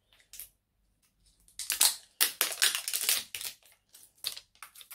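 Plastic film seal being torn and peeled off a cosmetic bottle: a run of crackling, crinkling rustles in the middle, with a few separate sharp ticks before and after.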